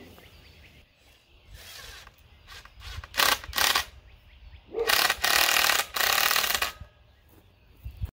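Rasping, scraping bursts of hand work on a wooden post: two short scrapes about three seconds in, then a longer rasping run of nearly two seconds, as a board end is fastened to the post with metal strapping and a screw.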